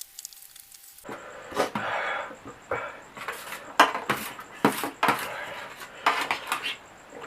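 Cutlery scraping and clinking against a dish while eating noodles, in a quick irregular run of clicks and scrapes that starts about a second in.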